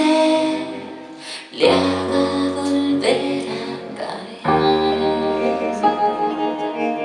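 Live band playing a slow pop-rock passage between sung lines: sustained keyboard chords with electric guitar. The chord changes twice, with a new bass note about a second and a half in and again near the middle.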